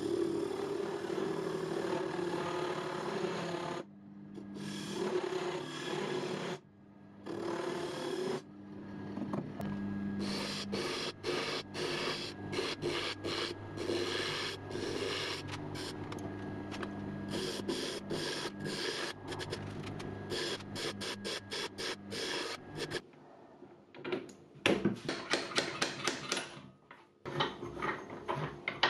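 Wood lathe running while a gouge cuts the spinning end-grain bowl blank, a steady rasping hiss over the motor's hum; the wood is old and dry, so the cutting throws off a lot of dust. Midway the cut breaks into many short, repeated strokes. The lathe goes quiet a few seconds before the end, and a series of sharp metallic clicks and knocks follows as the chuck is handled.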